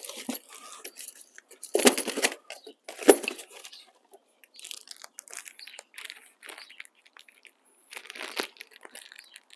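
Plastic wrapping and cardboard packing material rustling and crinkling as it is rummaged through by hand, in several short irregular bursts.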